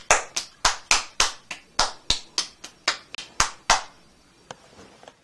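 Hands clapping: a run of about fifteen sharp claps, roughly four a second, that stops after about four seconds.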